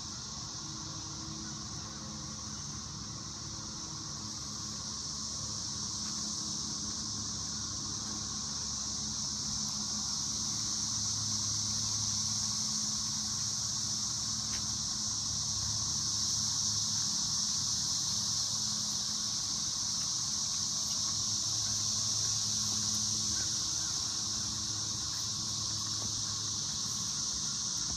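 Steady, high-pitched droning of an insect chorus, slowly swelling, with a faint low hum coming and going beneath it.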